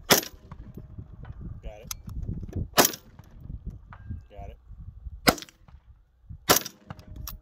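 Rifle shots on a shooting range: four sharp reports, the first right at the start, the next two about two and a half seconds apart, and the last about a second after the third.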